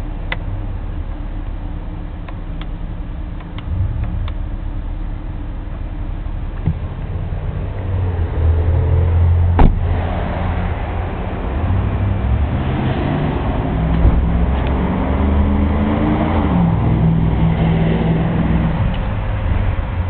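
Car engine running with a steady low drone. A few light clicks come in the first few seconds and one sharp thump comes about ten seconds in. In the second half the drone grows louder, and its pitch rises and then falls.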